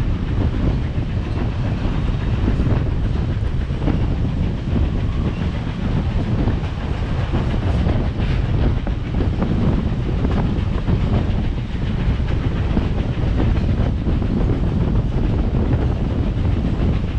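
Wheels of a steel passenger coach rolling along the rails at speed: a steady rumble with a clickety-clack from the track.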